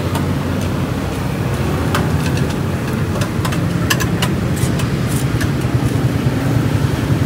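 A motor idling steadily with a low hum. Light metallic clicks of tongs against the grill racks are scattered through it.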